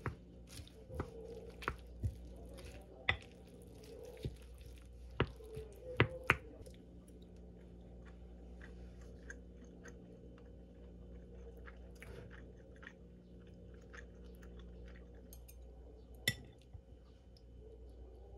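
Quiet eating sounds: wooden spoon and metal chopsticks clicking against a ceramic bowl as a rice bowl is mixed, with soft chewing. The clicks come thick in the first few seconds, then thin out to one near the end.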